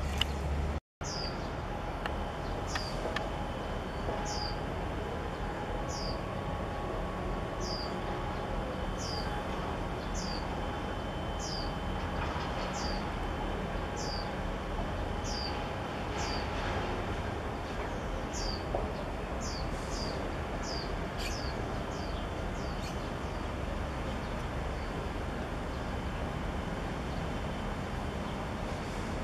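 Steady low rumble of the HYUNDAI COLOMBO, a 303 m container ship, passing close by. Over it a bird repeats a short, high, falling chirp every second or two, stopping for a few seconds in the middle.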